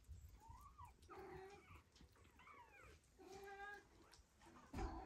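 Four-week-old Ragdoll kittens giving about four short, faint meows, with a soft thump near the end.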